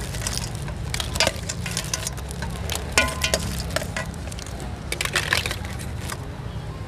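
Utensils clattering and clinking in a basin as a Thai spicy salad (yam) is tossed and mixed, with quick irregular knocks and a brief ringing clink about three seconds in, over a steady low hum.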